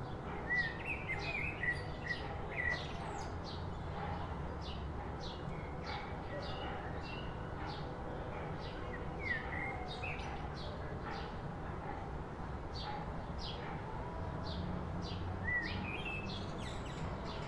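Songbirds chirping: short high chirps repeating about twice a second, with a few gliding whistled calls now and then, over a low steady background rumble.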